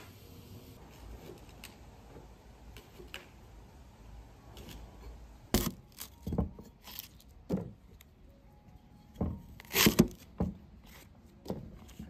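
Knife chopping taro stalks into pieces: light cuts at first, then about ten sharp, irregular chops in the second half.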